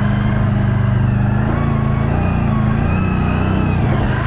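A vehicle engine running steadily under way at an even speed, with a faint wavering whine above it.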